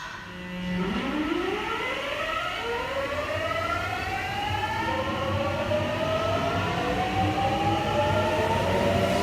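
Subway train accelerating from a stop: its electric traction motor and inverter whine rises in pitch in several overlapping steps over the rolling rumble of the wheels, starting about a second in.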